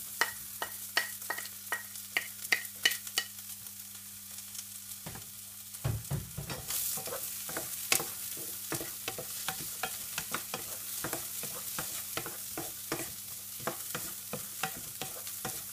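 Diced onion sizzling in a hot non-stick wok, stirred with a wooden spatula that clicks and scrapes against the pan in a quick, steady rhythm.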